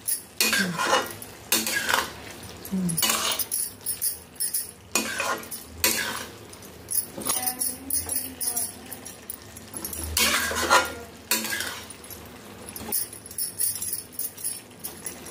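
Metal spatula scraping and clinking against a metal kadai as a thick turnip-and-greens sabzi is stirred, in irregular strokes with short pauses between them.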